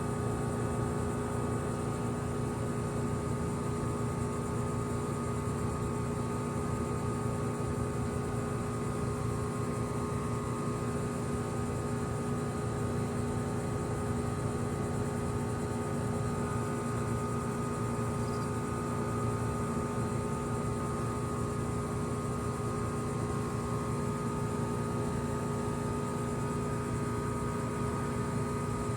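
2018 Goodman GSZ14 2-ton heat pump outdoor unit running steadily: an even machine hum with several steady tones over a rushing noise.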